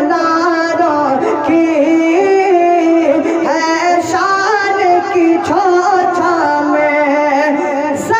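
A manqabat, a Sufi devotional song, being sung in long, drawn-out phrases that hold notes and slide between them.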